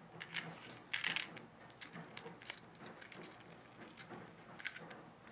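Clockwork winder of a plush wind-up toy mouse being turned by hand: quiet, irregular mechanical clicks and short rattles, the largest burst about a second in.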